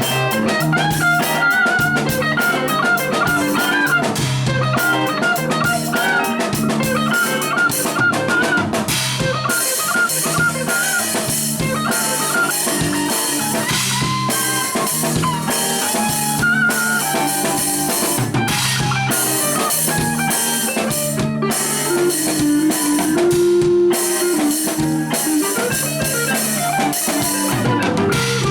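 Music with drums and guitar and a steady beat.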